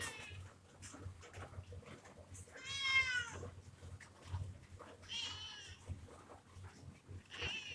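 A kitten meowing, three high-pitched meows a couple of seconds apart; the first is the loudest and drops in pitch at its end.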